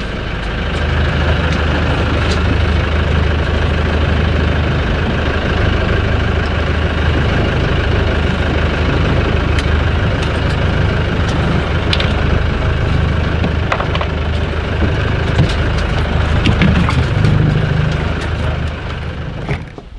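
Boat engine running steadily with a low drone, which drops away just before the end.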